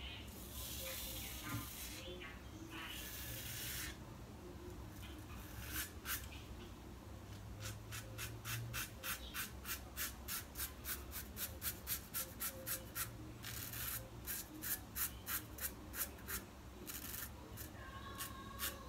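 Safety razor scraping a day's stubble off a lathered scalp. First come a few longer strokes, then from about six seconds in a run of short, quick strokes, about three a second.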